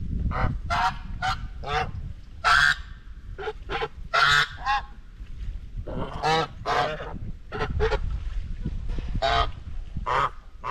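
White Chinese geese honking: a rapid run of short calls from several birds, some overlapping, with the loudest honks a little before the middle.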